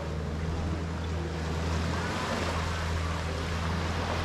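Boat engine running with a steady low drone, over the rush of water and wind.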